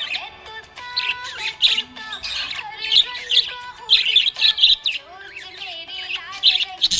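Budgerigars chirping and squawking: a run of short, sharp, high calls, two or three a second.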